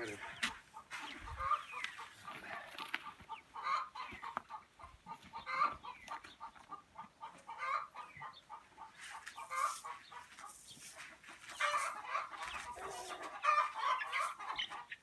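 Domestic chickens clucking on and off, short calls every second or two, with scattered small clicks in between.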